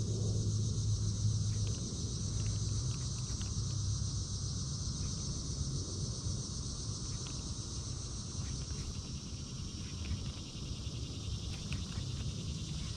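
Steady, high-pitched chorus of insects in summer foliage, over a low steady rumble.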